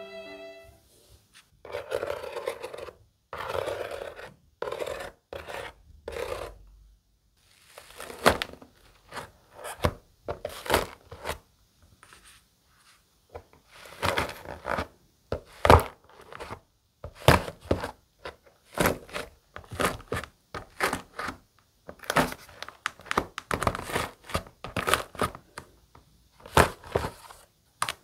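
Fingers pressing into and breaking the hardened, dried-out crust of an iceberg slime, giving a crispy crackling and crunching in irregular bursts, sharper and more frequent from about eight seconds in.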